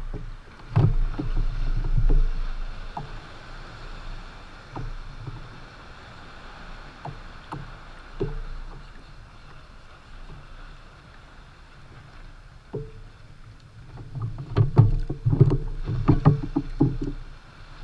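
Knocks, taps and low thumps on a plastic fishing kayak's hull and gear as the rod, tackle and a landed fish are handled, with a busy run of them near the end, over soft wind and water noise.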